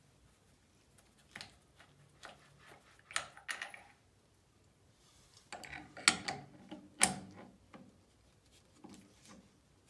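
Scattered metallic clicks and clinks as a brass ceramic-disc tap spindle and an adjustable wrench are handled and the wrench is fitted onto the spindle in the wall. The sharpest knocks come in a cluster about six to seven seconds in.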